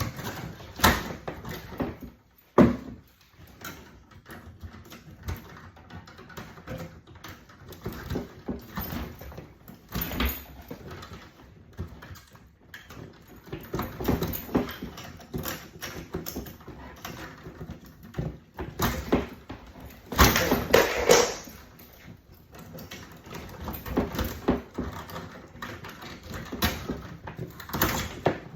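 Irregular knocks, clunks and rustling as cables are worked loose and pulled out of a metal electrical panel, with a sharp knock about two and a half seconds in and a longer, denser stretch of handling noise around twenty seconds in.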